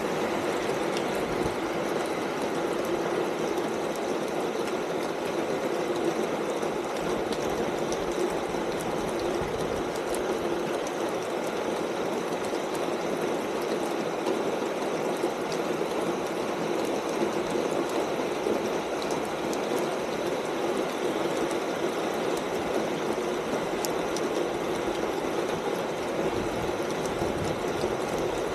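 Steady rain falling on a corrugated tin roof: a dense, even patter with the odd sharper drop tick.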